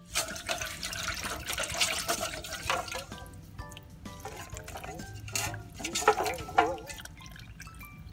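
Sugar-and-salt water poured from a metal mixing bowl into a well in dry flour, splashing and trickling in two spells, over light background music.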